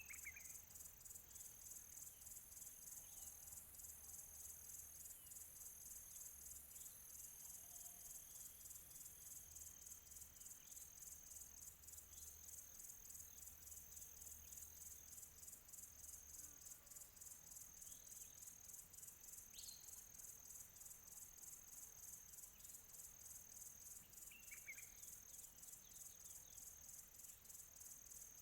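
Field crickets chirping steadily in a fast, even pulse, faint and high-pitched, with a few short, distant bird chirps now and then.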